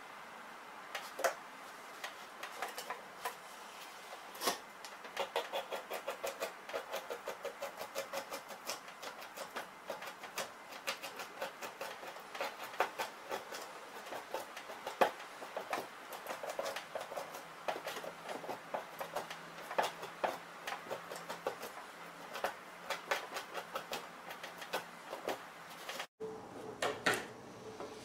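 Two-handled fleshing knife scraping fat and flesh off a beaver pelt stretched on a fleshing beam, in quick repeated strokes several a second, with a few scattered scrapes at first.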